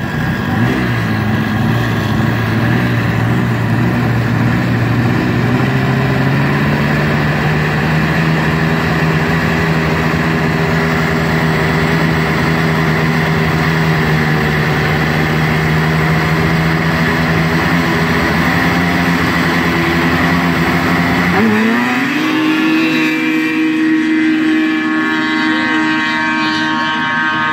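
Two-stroke racing snowmobile engines running at the start line, their pitch held steady and stepped up a few times as the riders hold the revs. About 21 seconds in they launch: the pitch sweeps up sharply and the sleds accelerate away at full throttle down the grass drag strip.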